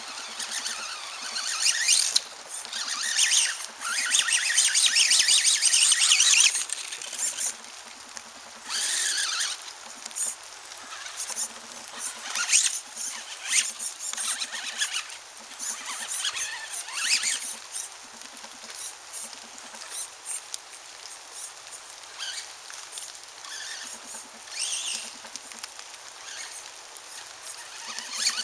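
Radio-controlled buggy driving on a dirt track: its motor whines and its tyres scrabble on the dirt in bursts of throttle. The longest burst comes in the first several seconds, followed by shorter ones.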